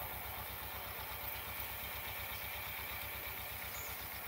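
An engine idling: a steady low throb with an even rhythm.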